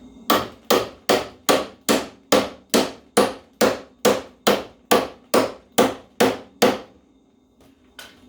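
Hammer blows on metal: about sixteen steady strikes at roughly two and a half a second, then a pause and one more strike near the end.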